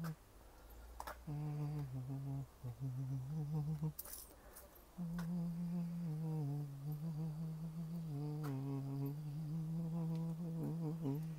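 A person humming a slow tune in long held notes, in phrases with short breaths between them, with a few brief sharp taps.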